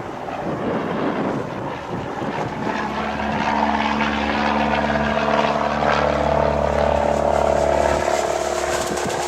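Cessna 172's piston engine and propeller running steadily, growing louder and then fading away. Wind buffets the microphone at the start.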